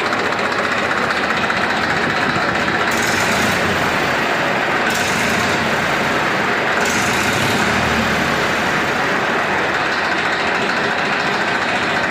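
Massey Ferguson 7250 DI tractor's three-cylinder diesel engine running, loud and steady.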